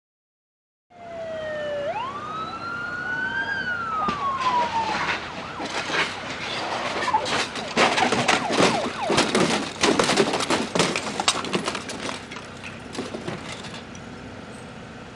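Police motorcycle siren giving one slow wail, dipping, rising and falling away, followed by several seconds of loud, irregular sharp knocks and crackle.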